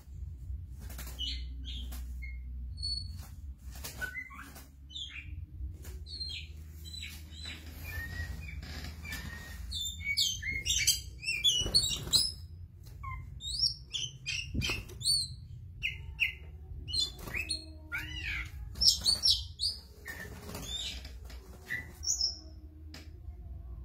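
Oriental magpie-robin (kacer) singing in a covered cage: quick bursts of short, varied whistled and scratchy notes. The song is sparse at first and becomes dense and loud from about ten seconds in, with scattered clicks and a steady low hum underneath.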